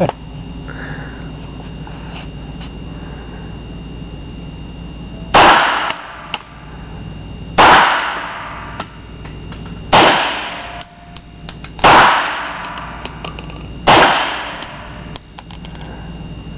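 Browning 9mm pistol fired five times, about two seconds apart, starting about five seconds in; each shot rings out with a long echo in an indoor range.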